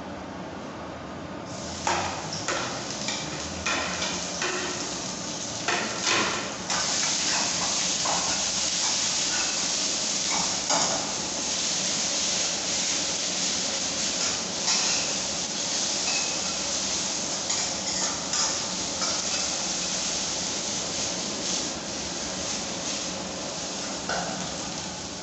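Food sizzling in a hot pan, with a utensil knocking and scraping against the pan. The sizzle starts suddenly about a second and a half in and gets louder about seven seconds in.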